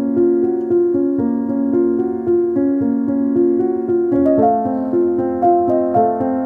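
Instrumental background music: a gentle piano melody with notes changing about twice a second, moving into a new phrase about four seconds in.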